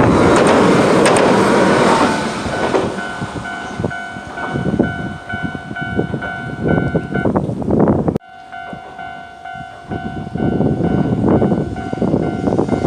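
Hiroden train running over a level crossing with loud wheel and rail noise. From about three seconds in, the crossing's alarm rings steadily over the running train. The sound breaks off sharply for a moment after about eight seconds, then the alarm and train noise carry on.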